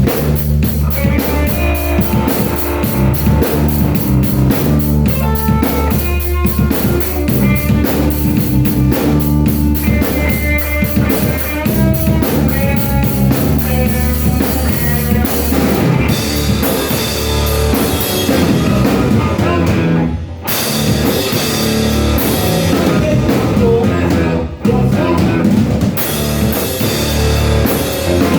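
Rock-style music with a drum kit and guitar, playing continuously, with two brief breaks past the middle.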